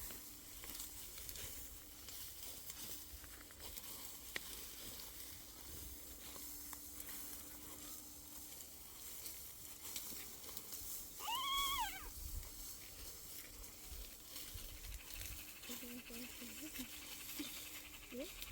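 Faint rustling and scraping outdoors, with one short, high animal call that rises and falls about eleven seconds in.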